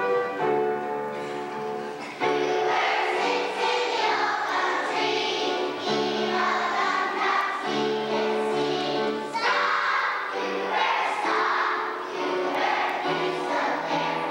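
A choir of young schoolchildren singing a song together.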